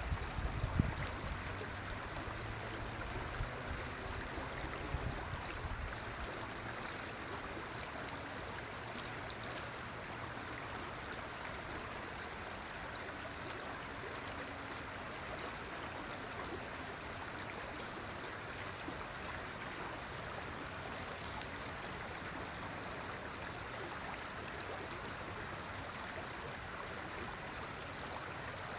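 River water flowing steadily over its bed, a constant rushing. Some low, irregular rumble in the first few seconds dies away.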